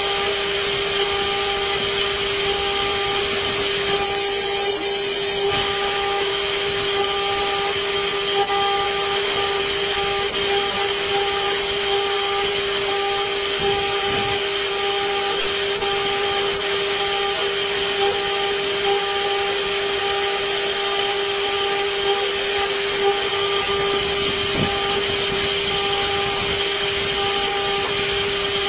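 CNC engraving machine's spindle running with a steady whine while its cutter mills a circular groove in a workpiece, with a hiss of cutting throughout.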